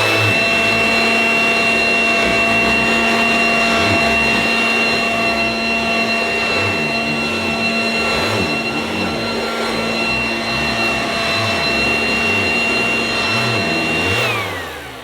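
A 1980s Goblin Roto mains-powered handheld vacuum cleaner with a revolving brush, running loud and steady with a high-pitched whine. It is switched off near the end, and the whine falls in pitch as the motor winds down.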